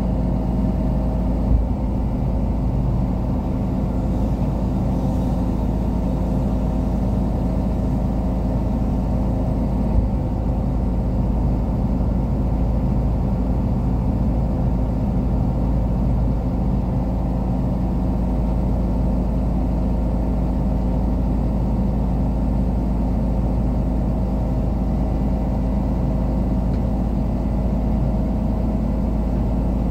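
Crane's diesel engine running steadily at a constant speed, heard from inside the operator's cab, with two brief knocks, about a second and a half in and again about ten seconds in.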